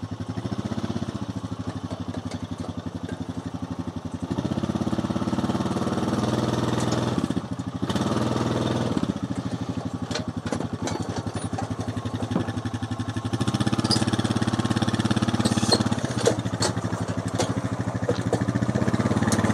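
A vehicle engine running, its pitch and loudness rising and falling several times as it pulls, with a few light clicks in the second half.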